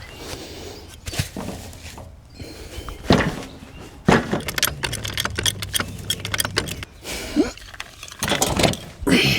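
Irregular metal clanks, knocks and rattles as a small jack and tools are handled and set in place under a riding lawn tractor, with sharper knocks about three and four seconds in.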